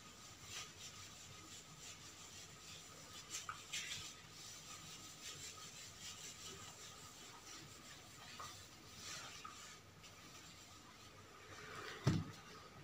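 Marker pen being drawn across a whiteboard in faint, scattered strokes, with one dull knock near the end.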